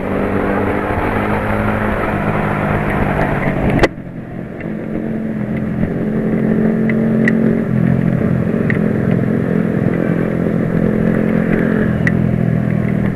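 Honda CS1's 125 cc single-cylinder four-stroke engine running while riding, heard over a rushing noise of travel. About four seconds in the sound breaks off sharply and drops, then the engine note comes back and grows louder as the bike speeds up.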